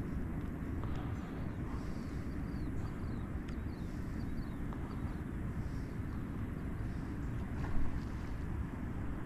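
Steady low outdoor rumble, with a bird giving a quick run of short falling chirps about two seconds in, and a brief soft knock near the end.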